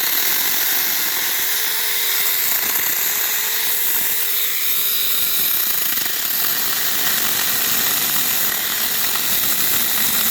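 Cordless 6-inch mini chainsaw running steadily under load as it cuts through a privet trunk, its pitch dipping and rising as the chain bites.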